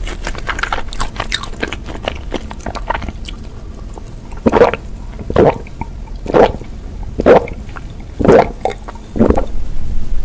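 Close-miked mouth sounds of chewing and smacking, then about six loud gulps of water from a glass, roughly one a second.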